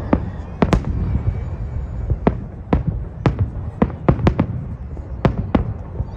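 Fireworks salute: about a dozen sharp bangs at irregular intervals over a continuous low rumble.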